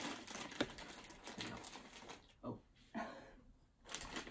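Plastic snack packet crinkling and rustling as it is handled, a quick run of light crackles and clicks for about the first two seconds, then a few brief rustles.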